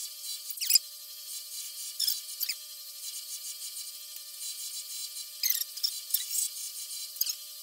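Bench grinder running with a faint steady hum while bolts are pressed against its spinning wheel in short, scratchy bursts, cleaning the hardware.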